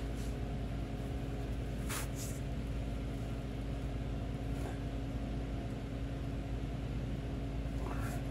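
Steady low hum of a workshop, with a few faint clicks as a breaker bar is worked on a bolt-driven bushing press tool under the truck.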